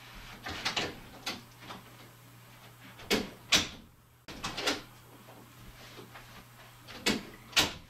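A few separate knocks and thumps from a person walking out of a carpeted bedroom and coming back in, the loudest a little past three seconds in and near the end, over a faint steady hum.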